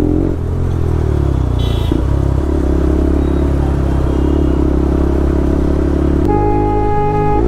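Pulsar RS200's single-cylinder engine running through an Akrapovic R1M full-system exhaust at a steady pace, loud and even. About six seconds in the sound changes abruptly and a steady higher tone joins in.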